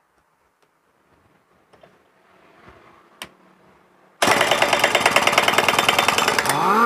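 Impact wrench hammering rapidly on the front variator pulley nut of a Honda Vario 125's CVT, undoing it to take off the roller housing. It starts suddenly about four seconds in, hammers for about two seconds, then runs down as it stops.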